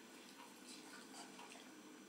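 Faint, soft wet clicks of an adult Doberman licking a puppy's head, over quiet room tone.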